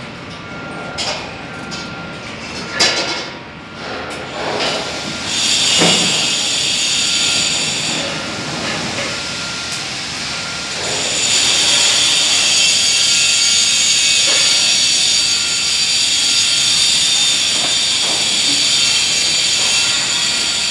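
Short scraping strokes in the joint between granite wall slabs, cutting a space for the filling. After about five seconds a steady high machine hiss sets in; it stops about eight seconds in and comes back about three seconds later.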